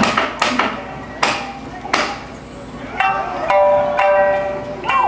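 Kabuki stage accompaniment: four sharp, ringing strikes, irregularly spaced, in the first two seconds. From about three seconds a long, drawn-out sung or chanted voice line follows, holding each pitch before moving to the next.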